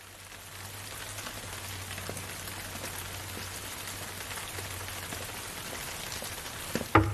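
Steady hiss of rain, with a low hum under it, fading in at the start. Near the end comes a quick run of a few sharp, loud knocks.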